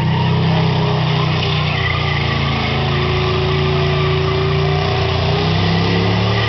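Muscle car's engine held at steady revs during a burnout, its spinning rear tyres adding a dense hiss and squeal. The pitch shifts slightly near the end.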